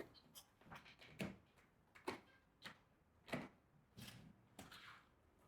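Faint, scattered plastic clicks and knocks, about half a dozen over a few seconds: a plastic storage box being seated on a folding trolley and its red latch clips locked.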